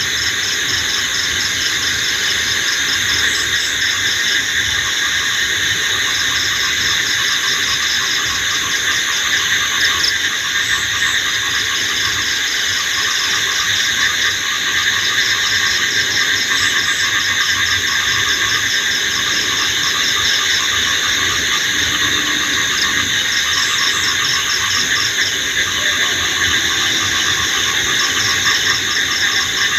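Night insect chorus: many crickets and other insects trilling together in a continuous, dense high-pitched drone. One high rapid pulsing chirp stops briefly and starts again every several seconds.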